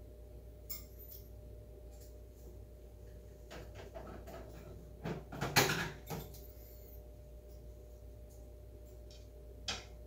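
Sun conure knocking and pushing plastic containers about on a wire shelf: a few light clicks, then a clatter of hard plastic knocks about five to six seconds in, and one more click near the end.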